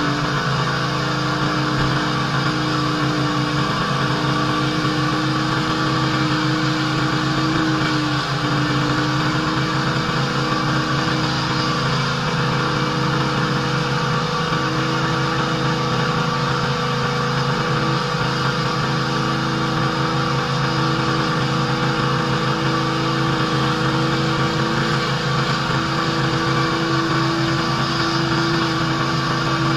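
Pressure washer running steadily under load, its engine hum drifting slightly in pitch over a constant hiss.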